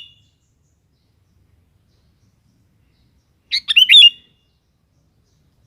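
Sooty-headed bulbul singing: one short phrase of a few quick notes about three and a half seconds in, with the end of an earlier phrase at the very start.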